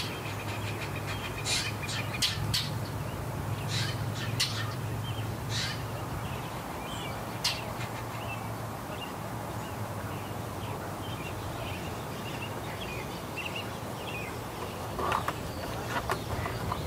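Jays calling: short, scratchy calls scattered through the first half and again in a cluster near the end, over a steady low hum that fades about halfway.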